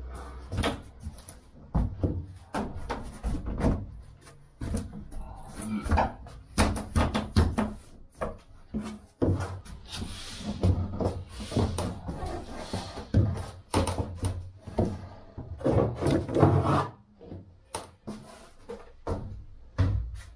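Irregular knocks, bumps and short scrapes of a fibreglass panel being shifted and worked into place in a boat hull, with a run of louder knocks about three-quarters of the way through.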